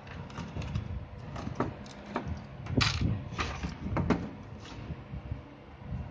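Irregular plastic clicks and knocks from handling the HP LaserJet 1020's removed fuser assembly on a work bench. The sharpest knock comes about three seconds in, with a quick pair about a second later.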